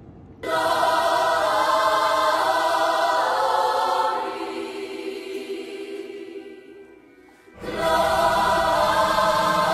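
Background music with sustained pitched layers. It comes in sharply about half a second in, thins out and fades almost away around the middle, then cuts back in at full strength near the end.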